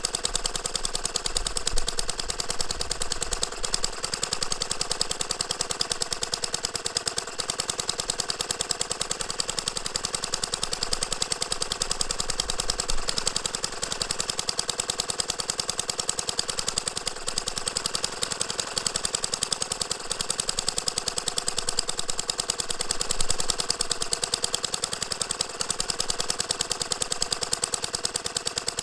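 Hoglet model V-twin internal-combustion engine running steadily, a fast, even stream of firing pulses with no misses.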